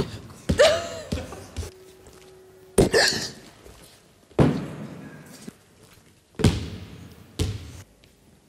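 A basketball hitting a person and bouncing off wooden bleachers and a hard gym floor: a string of about eight hard thuds at uneven intervals, each ringing on briefly in the hall's echo. Short vocal sounds come between the thuds.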